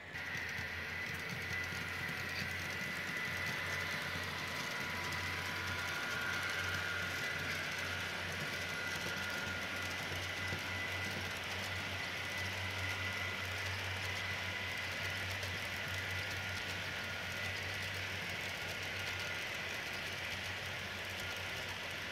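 Model train running on a layout's track: a steady low rumble with a faint high whine and hiss.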